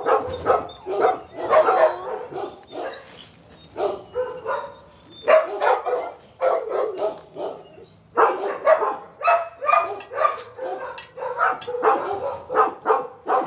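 Dogs barking over and over in quick runs of short, sharp barks, with brief pauses about three seconds in and again just past halfway.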